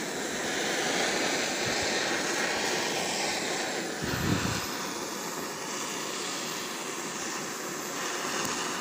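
Butane torch on a portable gas canister burning with a steady rushing hiss as its flame is played over an aluminium engine cover to heat it. A brief low bump about four seconds in.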